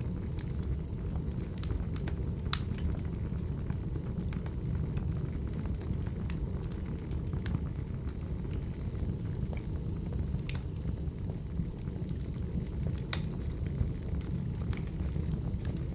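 Wood fire burning: a steady low rumble of flames with scattered sharp crackles and pops, the loudest about two and a half seconds in and again near thirteen seconds.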